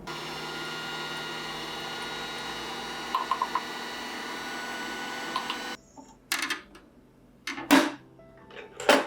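An electric household appliance running with a steady hum that cuts off suddenly about six seconds in, followed by several sharp clicks and knocks.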